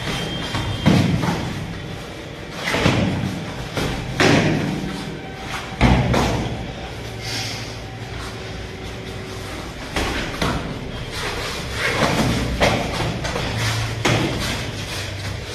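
Irregular thuds of sparring blows, kicks and punches in padded karate gloves and foot protectors landing on bodies and feet hitting foam mats, one every second or two.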